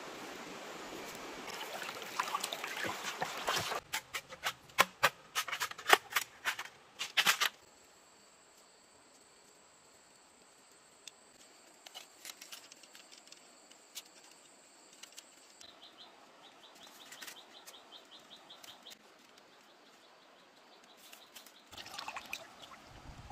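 A steady rush of flowing stream water, then a quick run of sharp cracks and snaps, the loudest part. After that it is quiet apart from a thin steady high whine and a bird's rapid chirping. Near the end water splashes as hands rinse something in a shallow stream.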